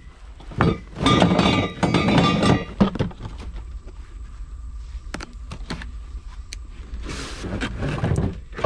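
Hollow metal feeder legs clattering and knocking against each other on a truck bed, with a brief metallic ring. Then scattered clicks, knocks and rustling as a cardboard feeder-kit box is opened and its papers are handled.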